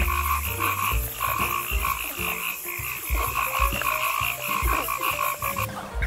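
Frogs croaking in a fast run of repeated pulses, about three or four a second, that stops suddenly near the end.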